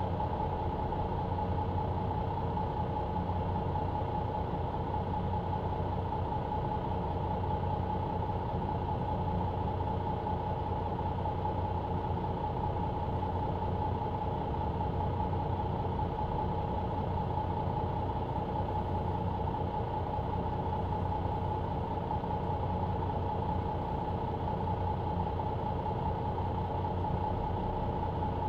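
Mercedes-Benz Citaro C2 LE bus heard from inside the cabin at the rear: its diesel engine and drivetrain running steadily, a low hum with a constant whine over it that holds the same pitch throughout.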